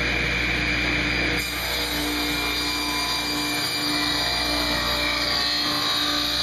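Table saw running and ripping a narrow strip of cherry along the fence, a steady saw noise, with background music playing over it.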